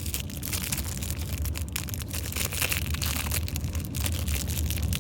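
Clear slime being handled and pulled out of its small plastic baby-bottle container: a dense run of small irregular crackles and pops, over a steady low hum.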